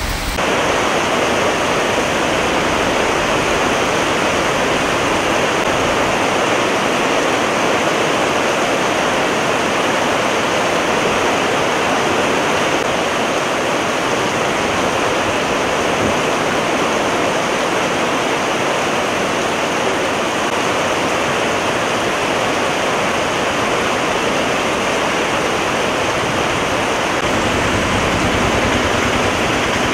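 Heavy rain pouring down steadily, splashing onto a waterlogged road. A low rumble joins near the end.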